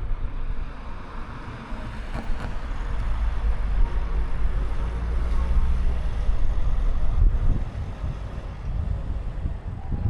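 Kia Sportage driving along a road: a steady low rumble of tyre and road noise with the engine under it, swelling and easing slightly.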